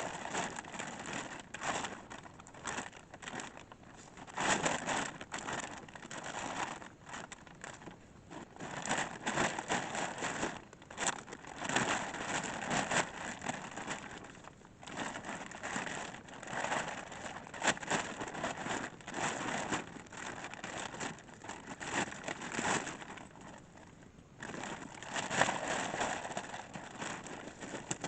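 Irregular spurts of rustling and crinkling, the sound of shelter material being handled and pulled about, with no steady rhythm.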